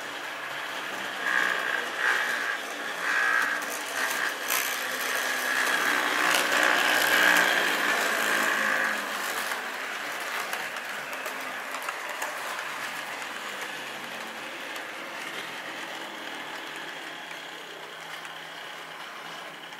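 HO scale model freight train rolling past close by, its wheels clattering and clicking over the track. A high tone sounds in a few short blasts and then one longer one during the first half, when the train is loudest.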